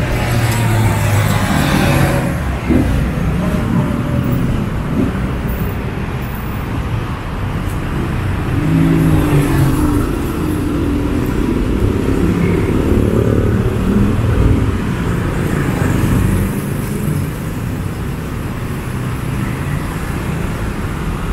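City street traffic: a steady bed of road noise with vehicle engines passing close by, near the start and again about nine seconds in.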